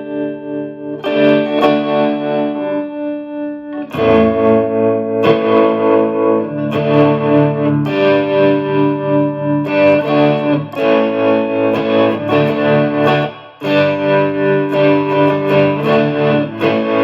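Electric guitar playing sustained chords through a fast tremolo and spring reverb, the volume pulsing quickly while each chord rings, re-strummed every second or two.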